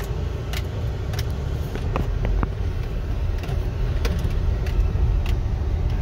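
Low rumble of a car driving slowly over a rough construction road, heard from inside the cabin, with scattered sharp clicks and rattles.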